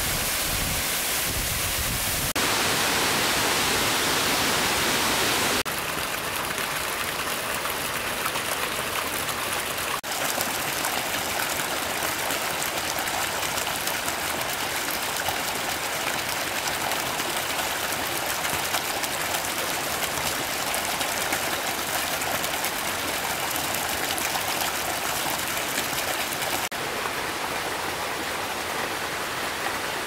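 Steady rush of running water. It changes abruptly in level and tone a few times.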